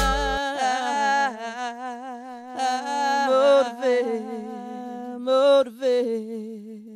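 A hip-hop beat cuts out about half a second in, leaving a woman's voice singing alone in held notes with wide vibrato, trailing off near the end.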